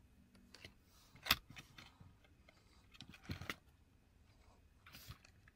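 Small hard-plastic clicks and rattles from handling a 1/24 scale RC crawler while its bungee winch cord and body are fitted. There is one sharp click about a second in, a few more clicks around three seconds in, and a soft rustle near the end.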